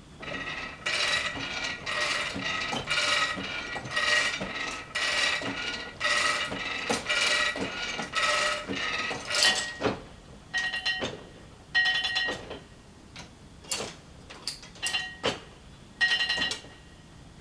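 Metal ratchet clanking on a Frick sawmill carriage: a steady run of ringing clanks about once a second, then a few scattered, sharper clanks in the second half.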